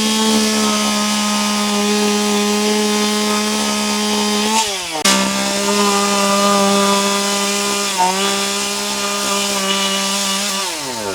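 A small handheld two-stroke power-tool engine held at a steady high speed. Its pitch drops as the throttle is let off about four and a half seconds in, it revs straight back up, and it winds down again near the end.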